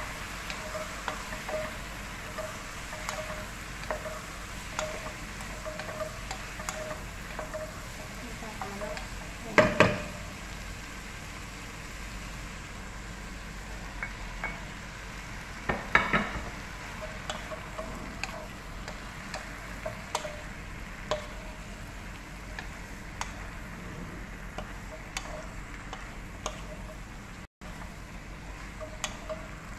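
Wooden spatula stirring vegetables and mushrooms sautéing in a pot, with a steady sizzle and a regular stirring rhythm of about two strokes a second. Two loud clatters of cookware come about ten and sixteen seconds in.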